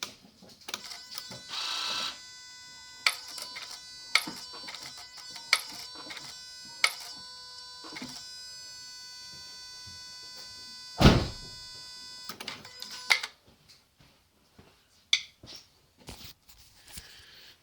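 Clip Sport portable music player giving off a steady, high electronic whine, with clicks and knocks from handling every second or so and a loud thump about 11 seconds in. The whine starts about 3 seconds in and cuts off a little after 12 seconds.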